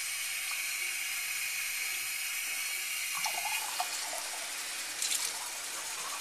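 Kitchen faucet running a steady stream of cold water into a glass measuring cup held over a stainless steel sink; the splash changes about halfway through.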